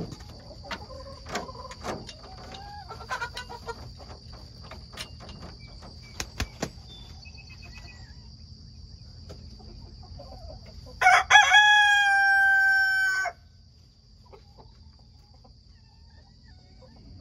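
A rooster crows once, loud and about two seconds long, starting about eleven seconds in. Before the crow, chickens cluck softly in the coop and there are a few sharp knocks. A steady high chirring of crickets runs throughout.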